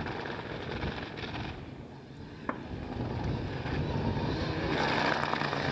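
Mitsubishi Lancer Evolution rally car's turbocharged four-cylinder engine approaching at speed on gravel, growing louder over the last couple of seconds as the car comes closer.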